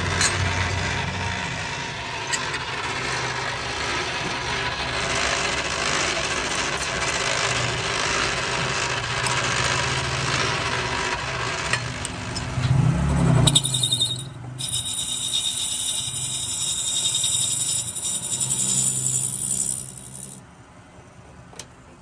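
Metal lathe turning a brass hand-pump part: the machine running with the cutting tool scraping the brass and chips rattling. A short loud swell comes a little past halfway, then a higher, hissing cut for several seconds before the sound drops quieter near the end.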